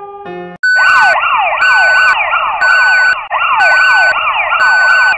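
Electronic siren sound effect: rapid repeating falling sweeps, about three a second, with a steady high beep pulsing on and off about once a second. It cuts in loudly about half a second in, right after a short piano phrase ends.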